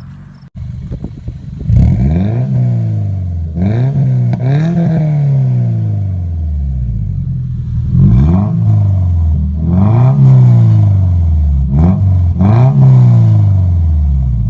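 Subaru flat-four engine through a Spec-D catback exhaust, idling and blipped again and again, six or seven quick revs that each rise and fall.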